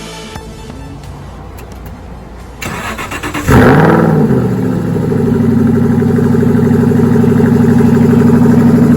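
Background music, then a 2014 Aston Martin V8 Vantage's 4.7-litre V8 is started: the starter cranks for about a second, the engine catches with a loud rev flare that falls away, and it settles into a steady fast idle.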